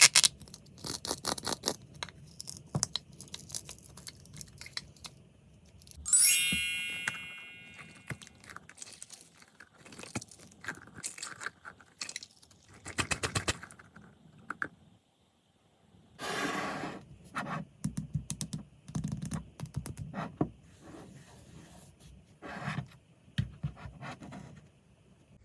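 Kinetic sand being scraped, cut and crunched with a fork, in irregular crackly strokes and clicks. About six seconds in comes one bright metallic ding that rings on and fades.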